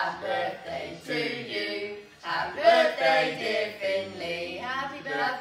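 Several people singing together without accompaniment, in a few short sung phrases.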